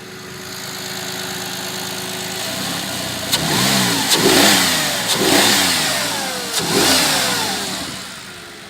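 Audi A6 C6 engine idling, then revved in four quick blips that rise and fall back to idle. It runs clean with no intake-manifold knock, the manifold flap's stop now padded with rubber.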